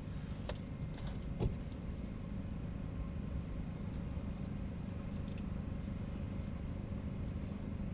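Steady low hum of a Mr. Heater Big Buddy portable propane heater burning on low, with a couple of faint clicks in the first two seconds.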